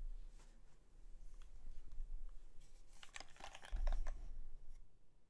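Typing on a custom Bauer 2 mechanical keyboard with an aluminium plate, lubed Cherry MX Black linear switches and GMK keycaps: sparse keystrokes at first, then a quick flurry of keys about three seconds in with a deeper thump among them, and the typing stops near the end.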